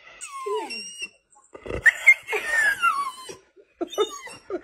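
A dog whining: a series of high, drawn-out cries that fall in pitch.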